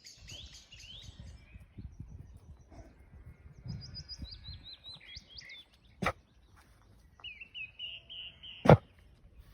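Songbirds singing in woodland: two short phrases of stepped, falling notes with a rising flourish. There is low rumbling in the first half, and two sharp knocks, the second about 8.7 s in being the loudest sound.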